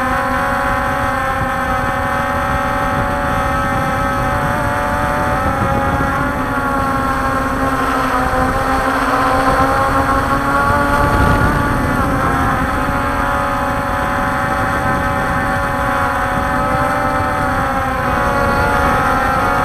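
Walkera Scout X4 quadcopter's four brushless motors and propellers whining steadily in flight, heard from the onboard camera, over a low rushing noise. The pitch dips and rises a little as the quad manoeuvres, and it grows slightly louder about ten seconds in.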